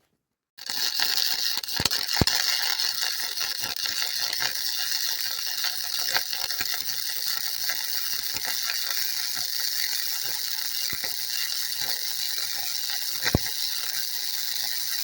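Flux-core MIG welding arc, crackling and hissing steadily with a few sharper pops; it starts about half a second in.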